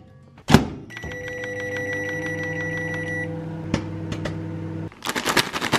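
A CDA microwave oven shuts with a single clunk and then runs with a steady electrical hum; a thin high whine sits over the hum for the first couple of seconds. The hum cuts off abruptly near the end and gives way to a quick flurry of clicks and rustling.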